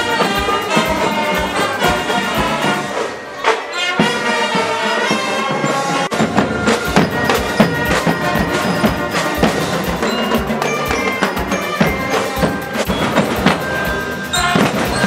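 Cadet marching drum band playing: brass horns over marching snare and bass drums keeping a steady beat.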